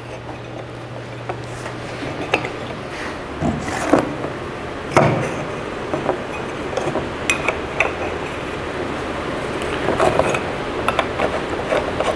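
Metal conduit fittings being handled and fitted together: an offset LB conduit body and a length of 3/4-inch conduit clinking and knocking in scattered, irregular clicks, the loudest about four and five seconds in.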